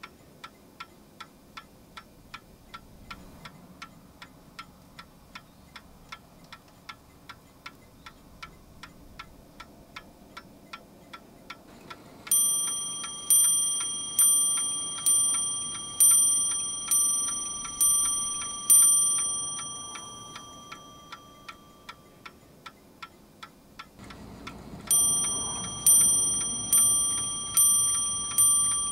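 Antique French gilt bronze cartel clock's movement ticking steadily about twice a second, then striking the hour on its bell: eight strikes about a second apart, each ringing on. After a short spell of ticking, the bell strikes again near the end, five more times.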